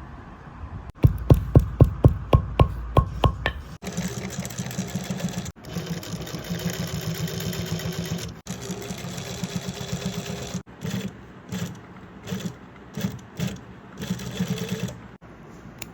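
About ten sharp, evenly spaced strikes at three or four a second, like a hammer tapping on a shoe. A small machine then runs with a fast buzzing rhythm, in stretches cut together, ending in a few short bursts.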